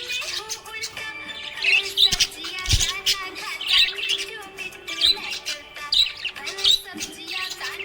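Budgies chirping and chattering in quick, repeated high bursts, over background music with held notes.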